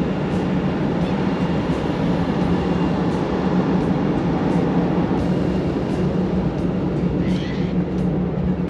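Freight train passing: a steady low rumble, with a short higher squeal about seven seconds in.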